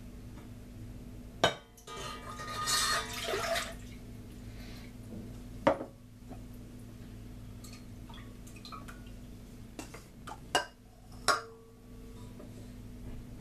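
Milk poured from a tall glass into a stainless-steel saucepan: a sharp knock of glass on the pan, then about two seconds of splashing. Further knocks of dishes on the pan and worktop follow, with three near the end as a wooden spoon goes into the pan.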